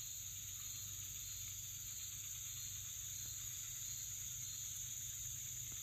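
Chorus of insects making a steady, high-pitched drone.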